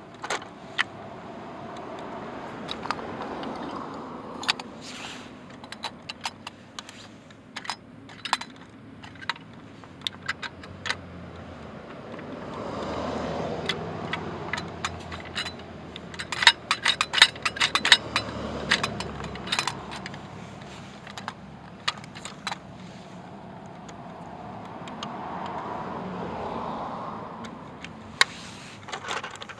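Small sharp clicks and rattles, in clusters, from a die-cast toy garbage truck being handled by hand, densest just past the middle. A car passes on the street about halfway through.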